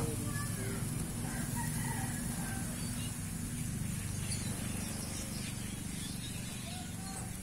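A rooster crowing several times in the background, with pitched arching calls near the start, in the middle and near the end, over a steady low hum.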